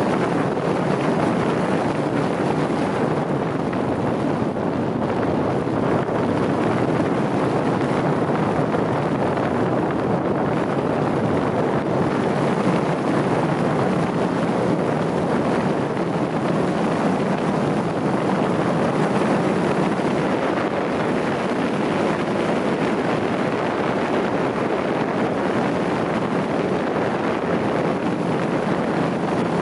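Steady rush of wind on the microphone mixed with tyre noise from a vehicle driving along smooth tarmac, holding an even level with no distinct engine note.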